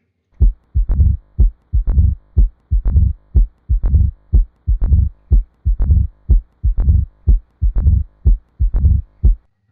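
Recorded heartbeat of mitral stenosis: loud first heart sounds (lub) and second sounds (dub) repeating about once a second, with a swishing diastolic murmur that comes just before each first heart sound.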